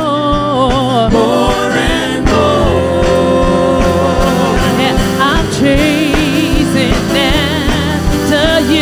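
Live gospel worship music: several singers hold long notes with vibrato over a backing band.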